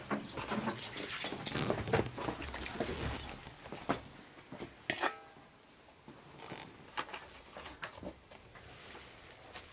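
Steel bowls and a metal ladle knocking and scraping as they are handled, busiest in the first few seconds, with one clear ringing clink about five seconds in and a few lighter knocks after it.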